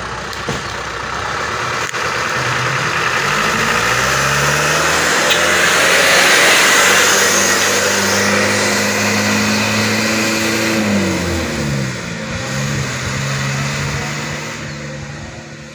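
Mitsubishi flatbed truck's diesel engine accelerating past, loaded with a combine harvester; the engine note climbs, is loudest as the truck goes by about six seconds in, drops and picks up again about eleven seconds in as it shifts gear, then fades as the truck drives away.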